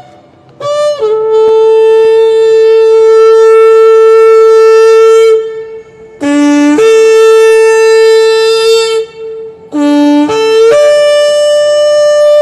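Shofar blown in three long blasts, each held steady for several seconds and opening with a brief note at a different pitch before settling; the last blast sits higher than the first two.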